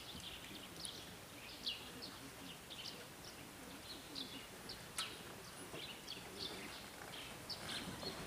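Small birds chirping, many short, high, falling chirps scattered over a faint outdoor background, with one sharp click about five seconds in.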